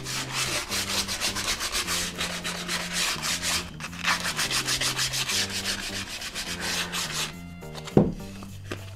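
Wooden loom pieces being hand-sanded with coarse 80-grit sandpaper: quick back-and-forth rubbing strokes that smooth the sawn edges. There is a short pause about four seconds in and a single knock near the end.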